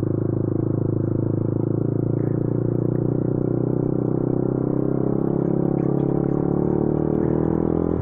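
Yamaha R15's single-cylinder 150 cc engine running at a steady pace while the motorcycle is ridden.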